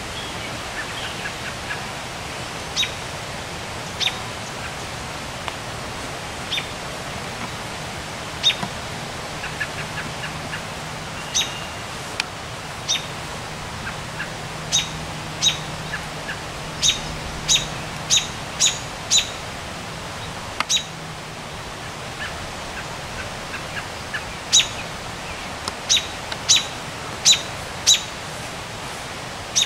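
American robin giving sharp single call notes, a second or more apart at first, then in quick runs of four or five about halfway through and again near the end. Fainter small-bird chirps and a steady hiss sit behind them.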